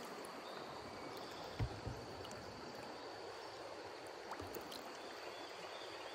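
Steady rush of stream water flowing over rocks, with a couple of faint low knocks about one and a half seconds and four and a half seconds in.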